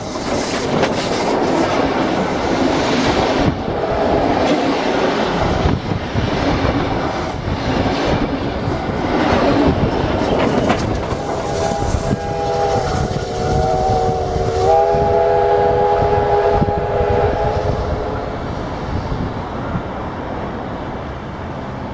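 Victorian Railways K-class 2-8-0 steam locomotive K140 running past at rail level: a loud rumble and clatter of the engine and its wheels on the rails. About halfway through, a steam whistle blows a chord of several tones for about six seconds, shifting slightly in pitch once. The rumble eases off toward the end.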